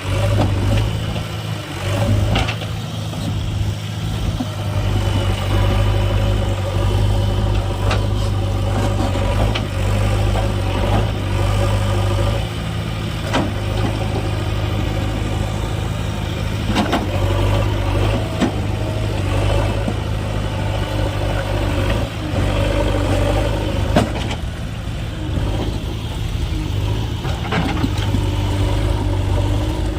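Diesel engine of heavy farm machinery (a backhoe loader or tractor) running steadily at a constant pitch, with a few short sharp knocks scattered through.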